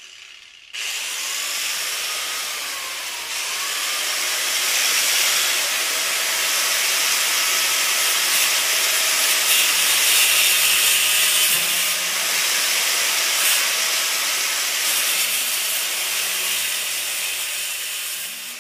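Power grinder cutting through a steel wire grate, throwing sparks. The steady grinding hiss with a faint motor whine starts about a second in and grows a little louder after a few seconds.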